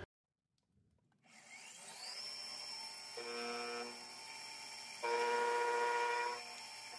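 Benchtop milling machine spindle spinning up with a rising whine, then running steadily while an end mill side-cuts the end of a billet aluminium block. There are two louder spells of cutting, a short one about three seconds in and a longer one about five seconds in. The end mill's side flutes are damaged and leave lines on the cut face.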